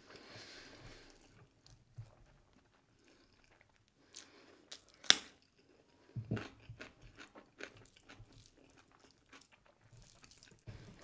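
A person chewing rice and egg curry, with many short wet mouth clicks and smacks. A single sharp click about five seconds in is the loudest.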